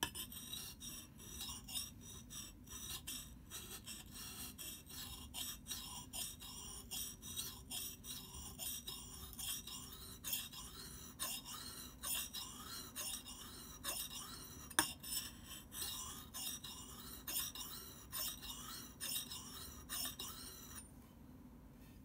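Axe head being ground back and forth across a whetstone: a steady run of gritty scraping strokes, about two a second, with one sharper click partway through. The strokes stop about a second before the end.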